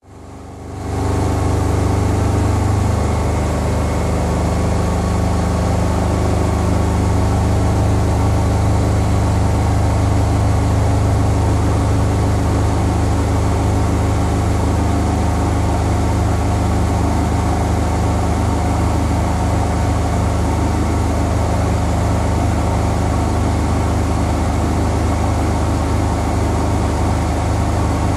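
Bosch Home Professional WAY32742 front-loading washing machine running at the start of its spin with two bath rugs in the drum: a steady low motor hum that fades in over the first second and then holds even.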